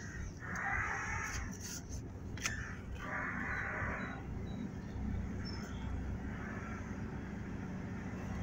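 Ferry's engine running steadily with a low rumble on deck. Two harsh, hissy sounds about a second long rise over it, about half a second in and again about three seconds in, along with a few sharp clicks.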